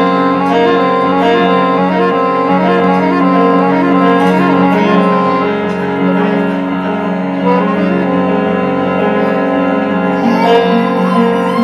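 Instrumental music with sustained, layered tones throughout. A higher sliding melody line comes in near the end.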